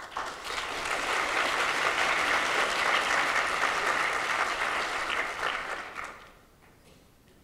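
Audience applauding, a steady patter of many hands clapping that fades out about six seconds in.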